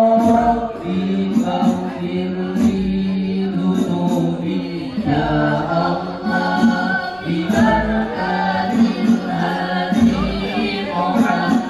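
Sholawat sung over an Al Banjari hadrah ensemble: voices singing a melodic Islamic devotional song, backed by rebana frame drums with deep bass beats and high jingling strokes.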